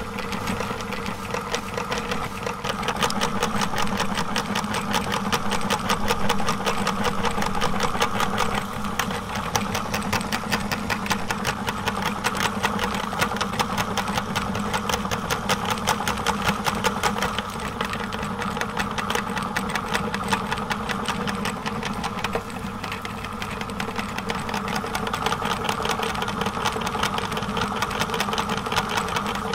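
Electric meat grinder running steadily as it grinds bars of soap and pushes them out through the cutting plate in strands, with a fast, even pulsing hum from its motor and gears.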